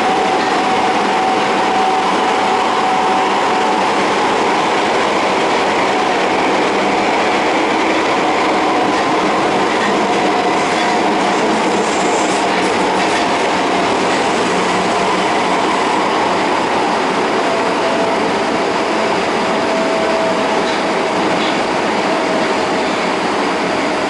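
Osaka Metro 22 series subway train running at speed through the tunnel, heard from inside the car: a steady rumble of wheels on rail with a faint high hum held under it.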